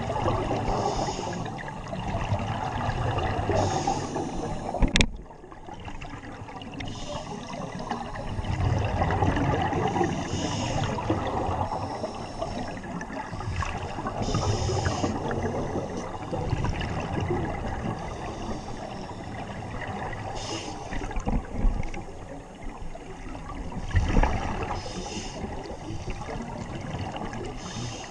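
Scuba divers' regulator exhaust bubbles gurgling, heard underwater, with a rush of bubbles every few seconds as a diver breathes out. A single sharp click about five seconds in.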